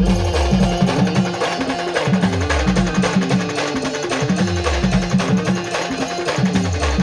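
Indian brass band playing a folk tune: a held horn melody over heavy, repeating bass-drum beats with falling low bass notes and busy percussion.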